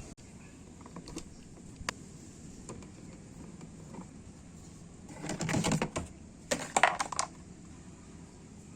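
Scattered light clicks, then two short bursts of rattling clatter about five and six and a half seconds in: hard parts and tools being handled while a washing machine is taken apart.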